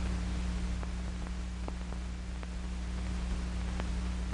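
Steady hum and hiss of an old film soundtrack, with a few faint, irregularly spaced clicks.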